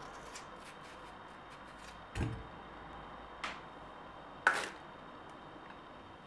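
Stationery being handled on a desk: a soft thump about two seconds in, then two sharper taps, the loudest about four and a half seconds in, with light ticks over a faint steady hiss.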